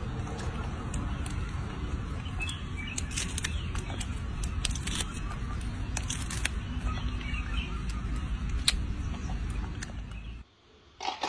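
Baby monkey peeling and eating lychees, with sharp cracking clicks from the shells over a steady low outdoor rumble and a few bird chirps; the sound cuts off abruptly near the end.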